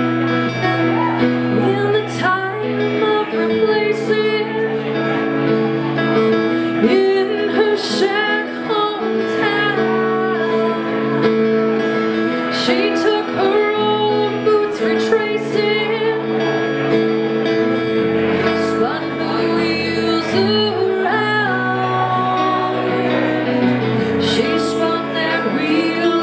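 Live acoustic duo: two acoustic guitars playing steady chords while a woman sings the melody.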